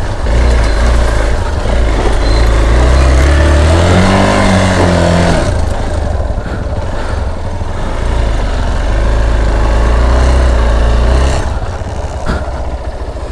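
Hero XPulse 200 motorcycle's single-cylinder engine revving on a muddy trail: the engine note rises about three and a half seconds in and falls again about two seconds later, keeps running under throttle, and drops to a quieter level near the end.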